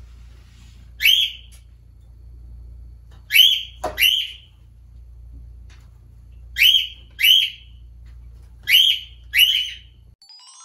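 African grey parrot giving short, sharp chirping calls, seven in all, mostly in pairs about half a second apart. A single knock comes about four seconds in.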